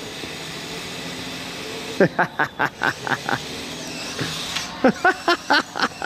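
Electric drive of a Kyosho Blizzard SR RC snowcat whining steadily as it runs on its tracks over snow. Short bursts of voices break in about two seconds in and again near the end.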